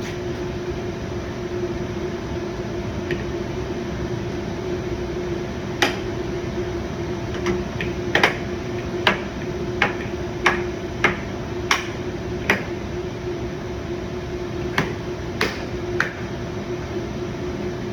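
Plastic trim clips on a car's wheel-arch molding snapping into their holes as it is pressed on: about a dozen sharp clicks at irregular spacing, starting about six seconds in, over a steady hum.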